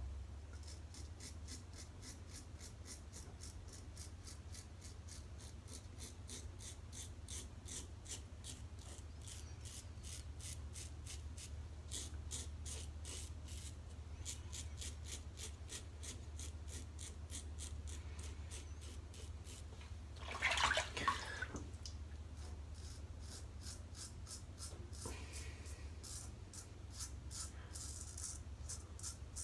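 Merkur Futur double-edge safety razor with a Feather blade scraping through stubble under lather in short, quick strokes, about three a second. A short louder whoosh comes about two-thirds of the way through.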